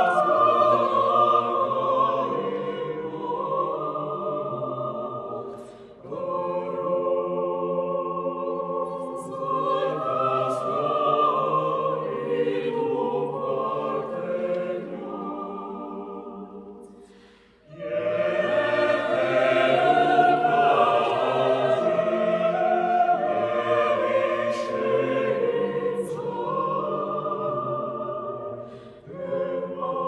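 Mixed choir singing a slow Armenian choral piece in long, sustained phrases. The singing fades almost to silence about 17 seconds in before the full choir comes back in loudly; there are shorter breaks about 6 seconds in and near the end.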